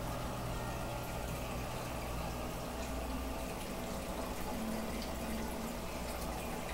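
Goldfish aquarium's running water, a steady bubbling and trickling over a low, steady hum from the tank's equipment.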